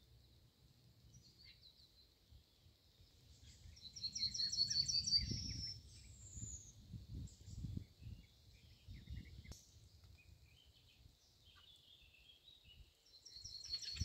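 A songbird sings a fast trilled phrase of repeated high notes about four seconds in and again near the end, with other birds calling faintly between. Under it, uneven gusts of a light breeze rumble on the microphone.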